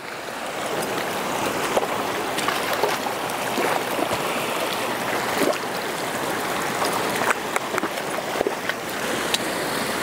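Shallow, rocky creek water splashing and rushing as a pony wades across it, building up over the first second, with scattered sharp knocks of hooves on the stones.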